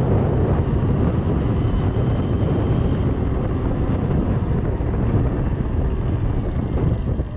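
Steady wind rush and buffeting on the microphone of a Sur-Ron electric dirt bike riding at speed on asphalt, with the hum of its knobby tyres on the road beneath. The electric motor gives no clear engine note.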